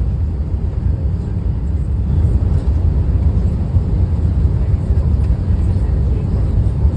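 Steady low roar of an Airbus A380's engines and rushing air, growing slightly louder about two seconds in.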